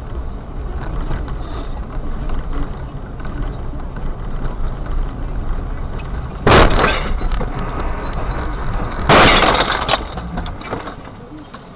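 A car crash heard from inside a vehicle: a steady low road rumble, then two loud crash impacts about two and a half seconds apart, the second longer. The rumble dies down shortly after the second impact.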